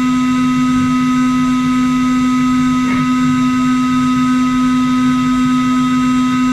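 CNC router spindle running with a steady, unchanging whine made of several constant tones, played back four times faster than real time.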